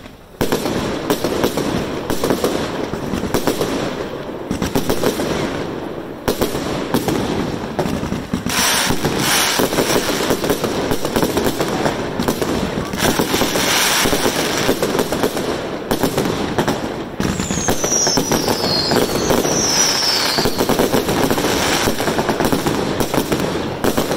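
Aerial fireworks going off in rapid succession: loud, dense crackling and popping of bursting shells. About three-quarters of the way through there are two short falling whistles.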